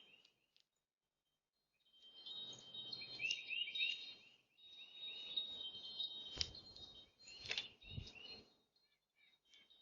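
Small songbirds chirping in quick runs of short, curved calls, starting about two seconds in, over a thin, high, steady note. Two or three sharp knocks come about two-thirds of the way through.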